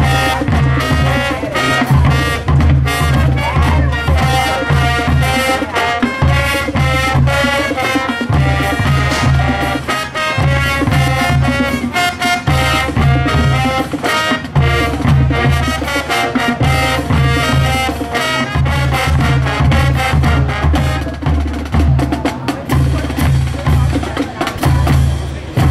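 High school marching band playing a brass and drum tune: sousaphones, trumpets and drums, loud, with a heavy pulsing bass line under a steady beat.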